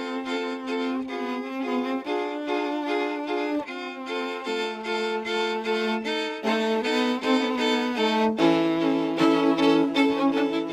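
String quartet of violins, viola and cello playing bowed, sustained notes in a slow classical passage. About eight seconds in, a lower note enters and the playing grows louder.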